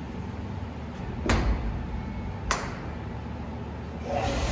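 Two sharp slams about a second apart, then a steady rushing noise that comes up near the end.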